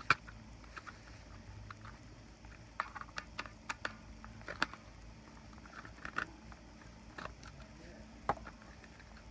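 Irregular sharp clicks and light knocks from a screwdriver and a plastic power strip casing being handled as the casing's last screw is backed out. The loudest click comes just after the start.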